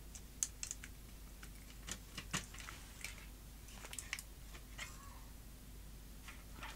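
Faint, irregular light clicks and taps of a metal board bracket and its cables being handled and pulled free as the main board and power supply come off an LCD monitor panel.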